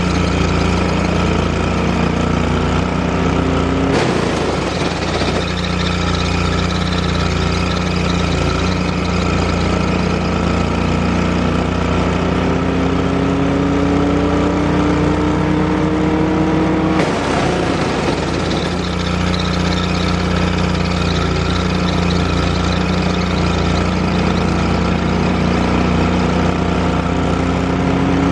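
Chipper's 18 HP Briggs & Stratton engine running steadily, under a whine that slowly rises in pitch. Twice, about 4 and 17 seconds in, the whine drops back with a short burst of rough noise, then climbs again.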